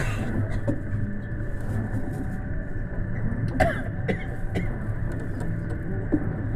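Running noise of a JR West Special Rapid Service electric train heard from the front of the train: a steady low rumble with a few sharp clicks about three and a half and four seconds in.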